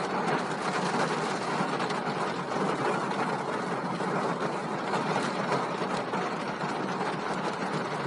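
Steady rushing noise of rain and a moving vehicle, heard from inside a car.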